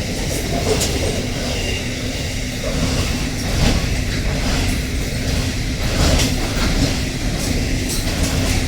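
Freight train rolling past: a steady low rumble of wagons, with clacks as wheels cross rail joints several times.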